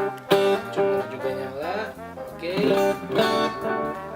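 Electric guitar played through a pedalboard and amplifier: picked notes and chords, with rising string bends around the middle. It is a sound test of a pedalboard wired with solderless patch cables, and the signal is free of hiss and hum.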